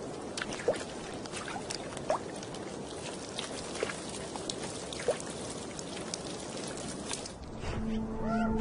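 Meltwater trickling and dripping on thawing ice, with scattered clicks and small rising plinks. Near the end, ambient music with long held tones comes in.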